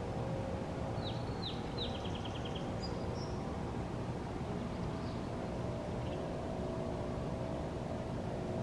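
Steady low mechanical hum, like distant engine or machinery noise. Over it, a bird gives a few quick chirps that fall in pitch about a second in, then a short trill, with a few faint single calls later.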